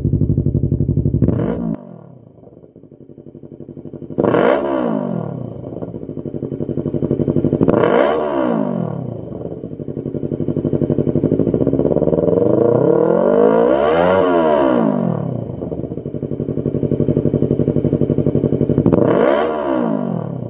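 Yamaha YZF-R3's 321 cc parallel-twin engine running through a Lextek YP4 full exhaust system, idling and being revved. It gives a short blip, then three sharp revs and one slower, longer rev that climbs and falls, each dropping back to idle.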